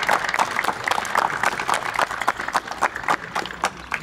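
Crowd applauding, many hands clapping at once; the clapping thins out near the end.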